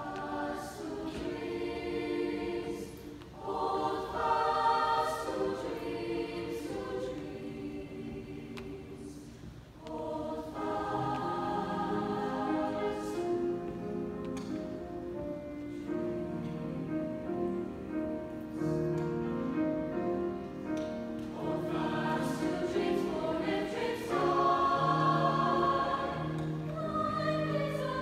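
Mixed high school choir singing a song with grand piano accompaniment, in sustained phrases with a short break in the sound just before ten seconds in.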